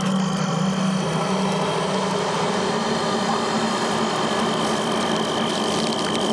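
Steady droning hum with a constant thin high-pitched whine over it, and no distinct events; the low part of the hum eases off a couple of seconds in.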